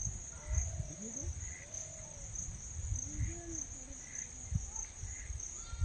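Insects chirring steadily in a high, pulsing band, over an irregular low rumble that buffets the microphone.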